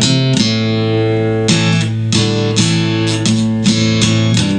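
Acoustic guitar strummed in a slow blues, a chord struck roughly every half second, played as a fill between sung lines.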